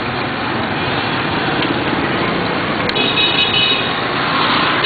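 Busy street traffic of motorbikes and cars heard from a moving cyclo: steady engine and road noise, with a short high tone about three seconds in.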